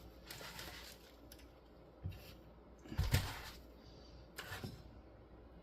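Small clicks and rustles of wires and tools being handled while preparing to tin the wires with solder, the loudest about three seconds in.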